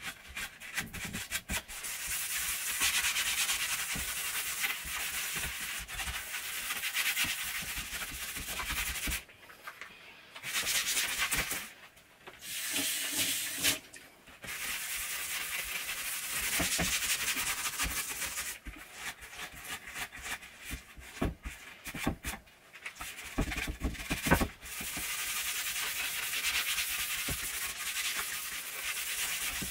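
Rubber-gloved hand scrubbing kitchen cabinet fronts and a stainless-steel sink with a sponge: a steady rubbing noise in strokes, broken by a few short pauses.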